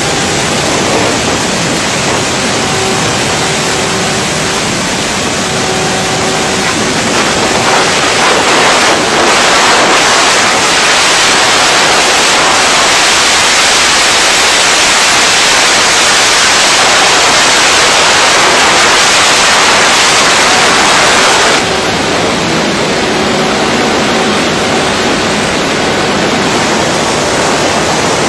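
Wind rushing over the microphone of a camera on a motorcycle at highway speed, with a faint steady engine tone underneath. The rush grows louder through the middle and drops suddenly about two-thirds of the way through.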